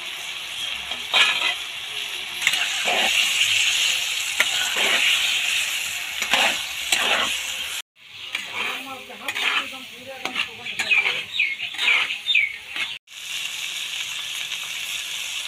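Goat head meat and spice paste frying in a wok over a wood fire: a steady sizzle, with a metal spatula scraping and stirring through it in irregular strokes. The sound breaks off for an instant twice.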